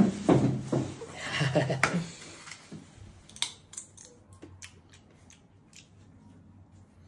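A voice for the first two seconds, then a run of short, sharp clicks from sunflower seeds being cracked between the teeth.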